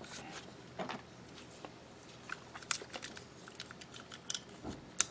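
Scattered small clicks and taps of hard plastic model-kit parts being handled and pressed together as the arms of an HG Gunpla kit are fitted onto the torso's shoulder joints. The sharpest click comes near the end.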